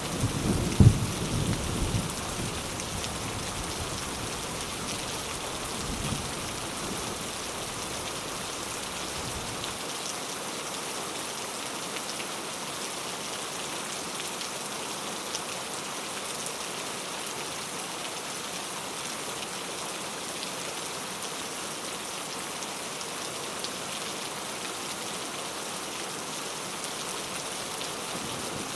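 Steady rain falling in an even hiss, with a low rumble of thunder dying away in the first couple of seconds and a faint further rumble a few seconds later.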